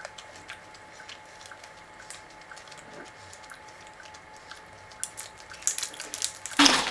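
Someone slowly chewing a soft chocolate bar with the mouth closed: faint wet mouth clicks now and then, busier toward the end, followed by a short louder burst of noise just before the end.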